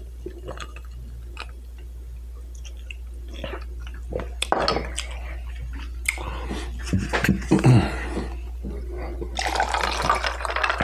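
Close-miked eating sounds: a drink sipped through a straw, then wet mouth clicks and chewing, over a steady low hum. Near the end a denser rustle as a small sauce bottle is handled and tipped over the food.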